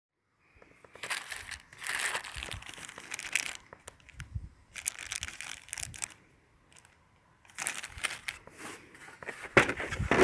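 Small clear plastic bag of plastic nuts and bolts crinkling as it is handled, in several bursts of rustling with a few sharp clicks, starting about half a second in.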